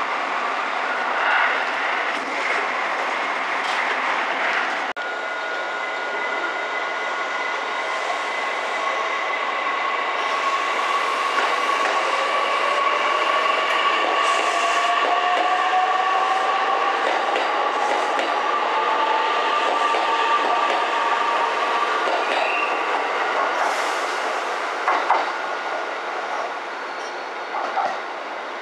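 JR West 227 series electric train at a station platform. There is a steady running noise with constant motor tones, and a whine that rises in pitch for about ten seconds as the train picks up speed. A few short clicks come near the end.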